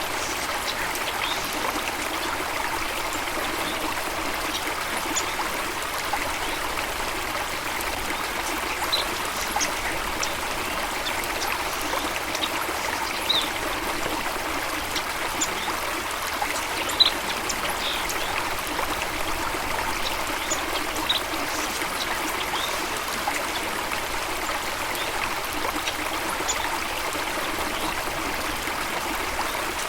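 Flowing water running steadily, like a stream or small cascade. Faint brief high-pitched blips are scattered through it.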